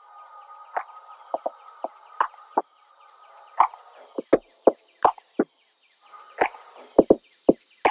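Beehive frames being worked loose and shifted inside a hive box: about a dozen sharp, irregular knocks and clicks of wood on wood, denser in the second half. Under them runs the faint steady hum of honeybees at the open hive.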